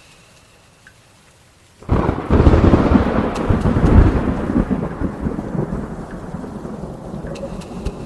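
A sudden loud thunderclap about two seconds in, rolling into a long rumble that slowly fades.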